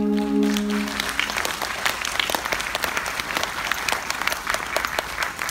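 Audience applause breaking out and continuing as a held musical tone fades out in the first second.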